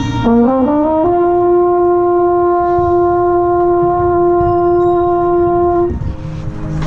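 Mellophone played right at the microphone: a quick run up several notes into one long, loud held note of about five seconds, which cuts off near the end.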